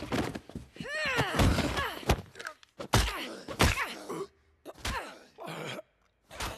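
Fight-scene sound effects: a drawn-out pained cry about a second in, then a series of sharp thuds and blows mixed with strained grunts.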